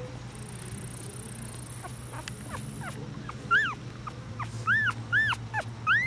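Three-day-old boxer puppies squeaking and whimpering: a few faint squeaks, then about four short, high cries in the second half, each rising and falling in pitch.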